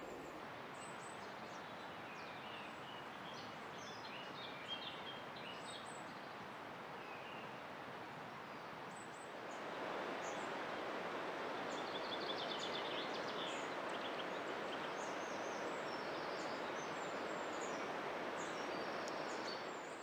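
Woodland birds chirping and calling: many short, scattered notes from several small birds. Under them runs a steady rushing background that grows louder about halfway through.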